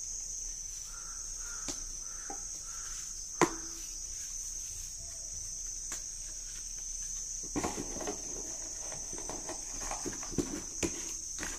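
Steady high-pitched chirring of insects in the background. A single sharp click about three and a half seconds in, then from about halfway a run of small clicks and rustles as a leather belt and its cardboard box are handled.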